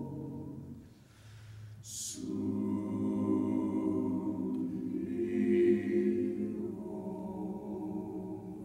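Mixed choir of men's and women's voices singing held chords. The sound thins to a brief lull about a second in, a sharp sung 's' comes near two seconds, and then the voices swell together on sustained chords.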